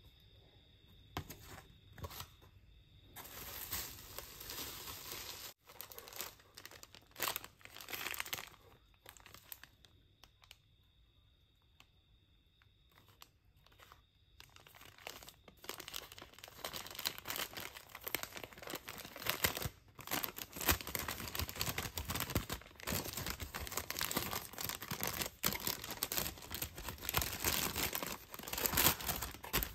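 Paper rustling in bursts as a thin white paper bag is handled and pulled open. It is quieter around the middle and busiest in the second half.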